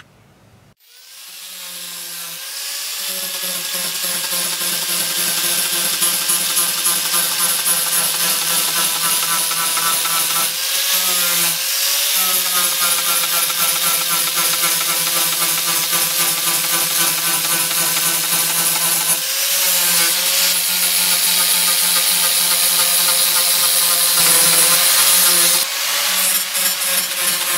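Angle grinder with an abrasive disc starting up about a second in and running as it grinds the surface of an HDPE plastic liner, the preparation step before extrusion welding. Its steady whine wavers briefly in pitch a few times as the disc works the sheet.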